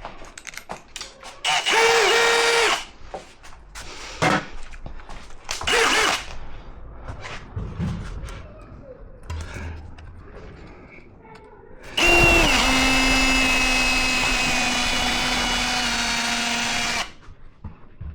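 Power drill running in three bursts: a short one about two seconds in, a brief one around six seconds, and a steady run of about five seconds starting about twelve seconds in. Light knocks and clicks of handling come between the bursts.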